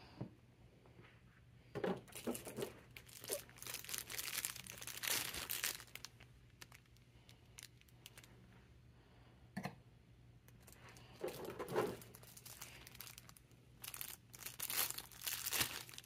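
Clear plastic packaging being crinkled and torn open in several bursts while figure parts are unwrapped. There are a couple of light knocks of pieces set down on the table.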